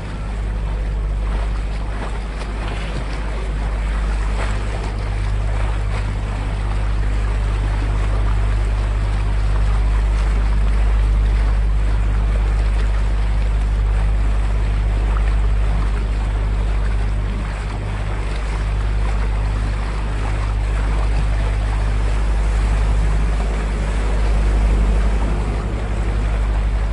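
Open tour boat's motor running steadily under way, with the wake water churning and rushing behind the stern.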